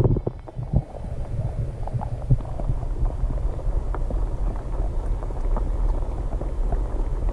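Muffled low rumble of moving water picked up by a camera submerged just below the surface, with scattered small knocks and taps.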